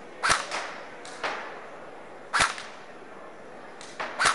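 Bolt M4 airsoft electric blowback rifle fired in single shots, a sharp crack every one to two seconds. Three of the shots carry a deeper thump from the gun's heavy recoil mechanism.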